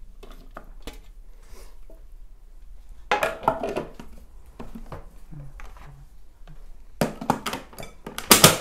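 Plastic parts of a small electric food chopper being handled and fitted together: light clicks as vegetables go into the bowl, a clatter about three seconds in as the clear lid is set on, and the loudest plastic knocks and clatter near the end as the motor unit is seated on top.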